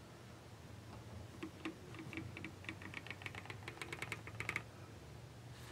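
A quick run of faint, irregular small clicks and taps from handling small items on a workbench, starting about a second and a half in and stopping near the end.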